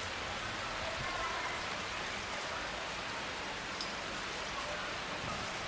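Rain shower falling steadily: an even hiss of rain on surfaces, with a few faint drop ticks.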